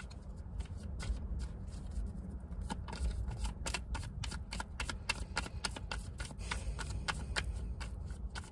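A deck of tarot cards being shuffled by hand: a quick, irregular run of soft card clicks and flicks.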